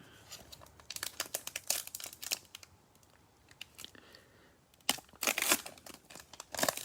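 Cellophane wrapper of a trading-card cello pack crinkling and tearing as the pack is opened, in two bouts of crackling: one about a second in, another near the end.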